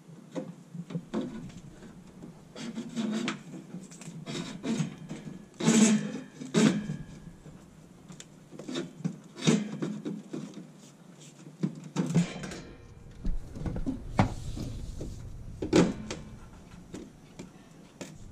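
A thick electrical cable being handled and fed through conduit into a metal breaker panel: irregular rubbing and scraping with scattered knocks and clicks against the enclosure.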